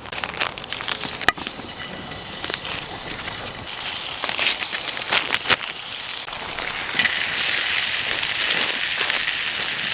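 Salmon sizzling over a campfire: a steady high hiss that builds about a second and a half in, with crackling pops scattered through it.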